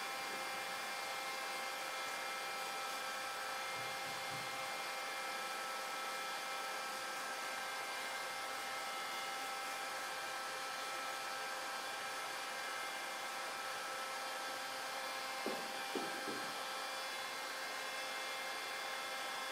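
Steady machine hum with a hiss and several faint whining tones, running without change, with a few light knocks about three-quarters of the way through.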